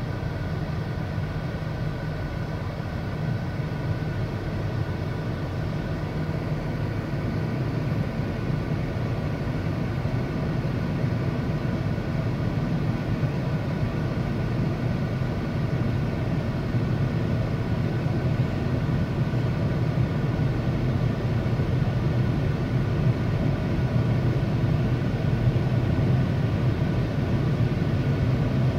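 Automatic tunnel car wash machinery heard from inside the car's cabin: a steady low rumble with a faint hum, getting slightly louder toward the end.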